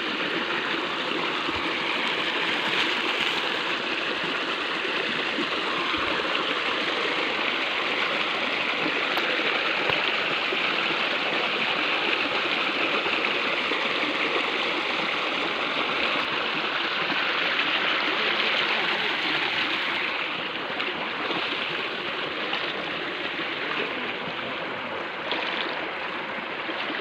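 Flowing stream water, a steady rushing and gurgling.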